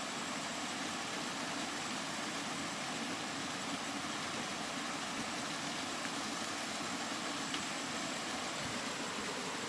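Steady rain falling, an even hiss with no change in level, with a few faint ticks from drops.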